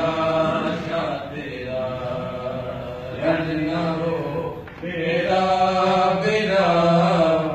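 Men chanting a noha, a Shia lament for Husain, with a lead voice holding long, wavering melodic lines and short breaks between phrases.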